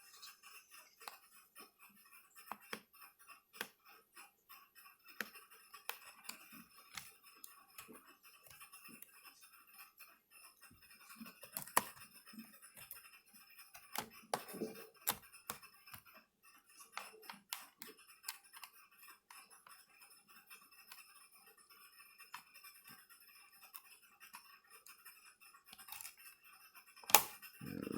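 Scattered small clicks and scrapes of a screwdriver and fingers working the bottom cover of a Dell Precision M3800 laptop loose, with a louder sharp snap near the end.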